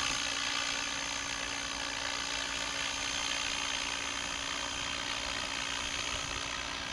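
Radio-controlled helicopter in flight, its rotor and motor giving a steady hum with a thin high whine, unchanging in pitch.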